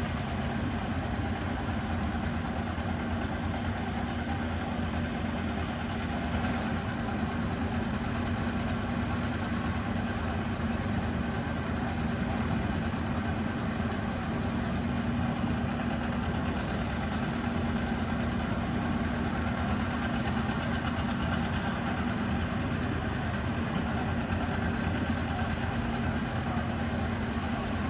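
Heavy diesel earthmoving machine engine running steadily at an even pitch, with no sharp changes in speed or load.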